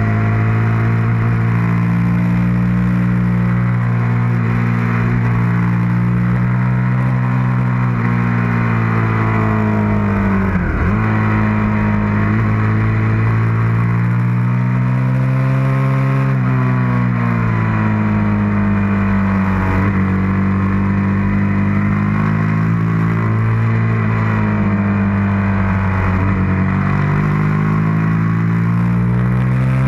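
Suzuki SV650's V-twin engine pulling hard at track speed. Its pitch climbs and falls with the throttle, with several quick sharp dips as it changes gear, over a steady rushing hiss.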